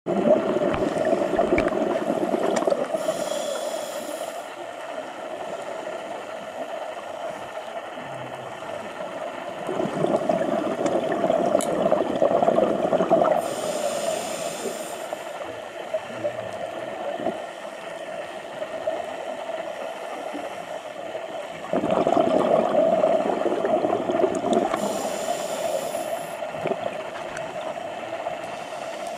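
Scuba regulator breathing heard underwater: three slow breaths about eleven seconds apart, each a few seconds of rumbling exhaled bubbles followed by a short hiss of air through the regulator. A steady hum runs underneath.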